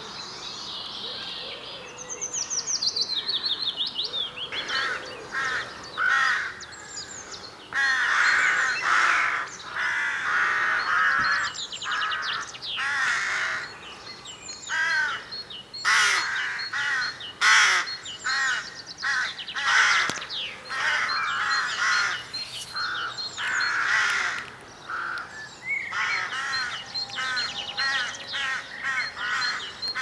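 Morning bird chorus: many wild birds singing and calling together, with loud bursts of calls coming and going. A high chirp repeats about twice a second through the second half.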